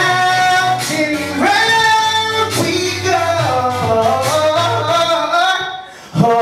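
Male R&B singer singing long, wavering held notes without clear words into a handheld microphone over backing music with a steady bass line. The sound dips briefly near the end, then comes back in sharply.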